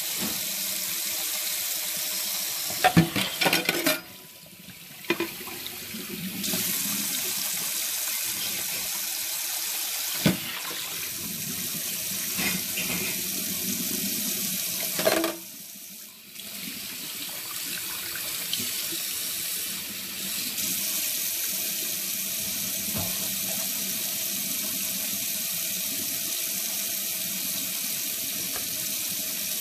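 Kitchen tap running steadily into a sink, with a few sharp knocks about 3, 10 and 15 seconds in. The rush of water dips away briefly twice, around 4 and 16 seconds in.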